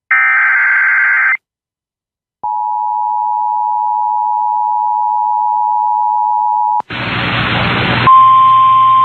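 Emergency Alert System tones: the tail of a SAME digital header burst, a harsh buzzing warble about a second long, then after a short silence the two-tone attention signal, a steady dual tone held for about four seconds. Near the end come about a second of hiss and then a single steady tone over hiss.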